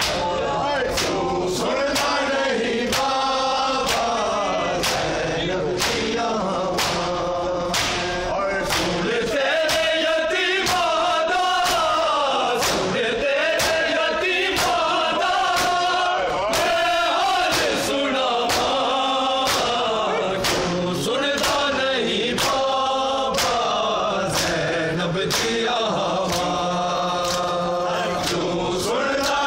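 Matam: a group of men chanting a noha in unison while beating their chests with open hands, each slap sharp and together. The slaps keep a steady beat of about three every two seconds under the chanting.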